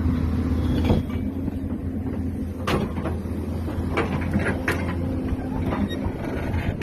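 Hyundai backhoe's diesel engine running steadily, with several sharp metal knocks and clanks; the engine drone drops away about five seconds in.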